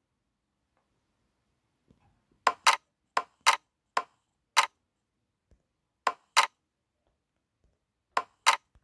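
Online roulette app's chip-placement sound effect: about ten short, sharp clicks, mostly in quick pairs, as betting chips are put down on the layout.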